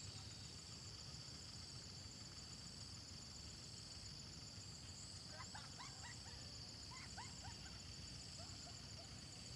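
Outdoor field ambience: a steady high-pitched insect chorus with a fast pulsing trill, over a low wind-like rumble. A cluster of short bird chirps comes in about halfway through.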